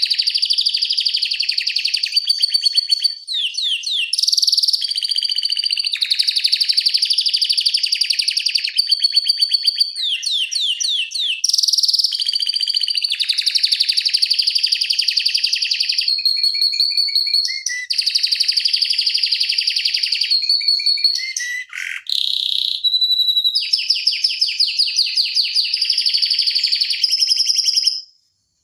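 Domestic canary singing a long, nearly unbroken song of fast rolling trills ('ngeroll'), with a few quick sweeping phrases between them. The song cuts off abruptly near the end.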